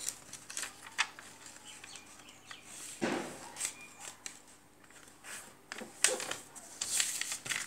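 Sheets of notebook paper being handled and shifted, with soft rustles and a few light taps, the sharpest about a second in and about six seconds in.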